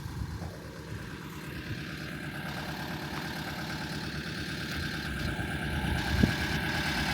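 A vehicle engine idling steadily with an even low throb, growing gradually louder toward the end.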